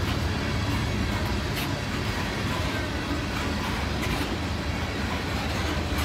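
Coal hopper cars of a freight train rolling past: a steady low rumble of steel wheels on the rails, with a few sharp clacks.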